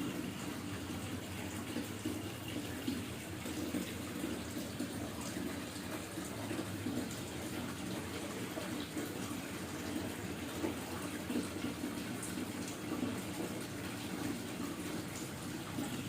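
Hot water being poured steadily into a coffee drip bag: a continuous trickling, splashing stream.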